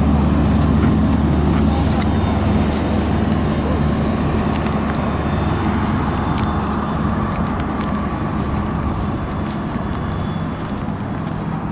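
Car engine and road noise: a steady low rumble that slowly eases.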